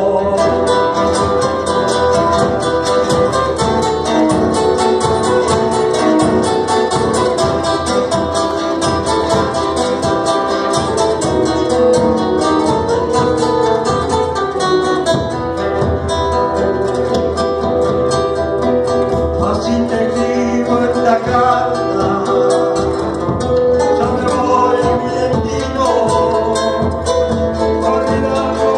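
Live Latin American folk music: two acoustic guitars strummed in a steady rhythm with a hand drum, and a man singing over them.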